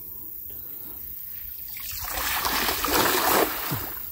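A nylon cast net with lead sinkers thrown and landing on the river: a spray of splashing that swells for about a second and a half, then stops abruptly.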